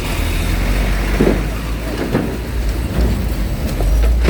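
Cars and trucks driving aboard a ferry: a loud, deep, steady engine rumble, with a few short louder sounds about one and two seconds in.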